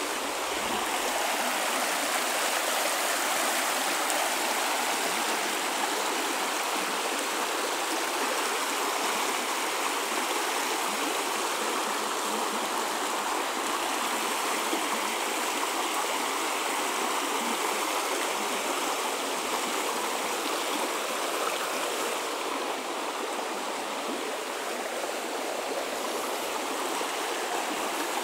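River water rushing steadily over rocks and small rapids.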